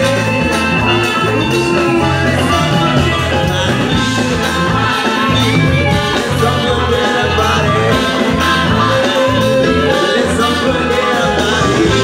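A live band plays a Latin-style number through a PA: congas and drum kit, electric guitars, and women singing.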